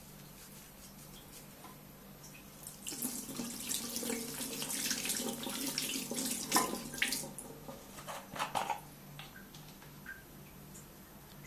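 Water tap running into a bathroom sink while hands are rinsed under it, starting about three seconds in and stopping after four or five seconds, followed by a few sharp handling clicks.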